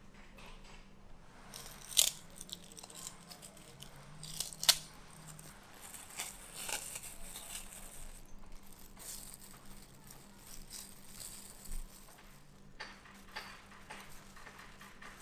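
Crisp tearing and crunching handling sounds, broken by two sharp clicks about two seconds in and near five seconds, then scattered lighter crackles.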